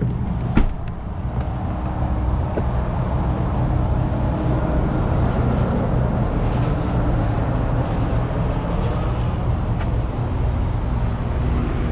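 Steady low mechanical hum, with a sharp knock about half a second in.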